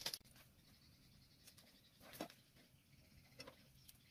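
Near silence with a few faint, scattered clicks, about four in all.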